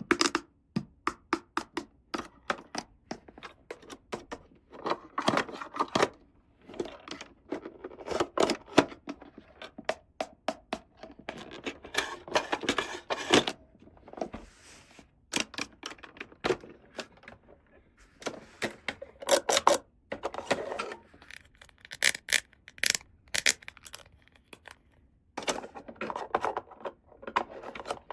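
Small plastic toy pieces being handled and set down: irregular clicks, taps and light scrapes, with stretches of rustling like packaging being handled.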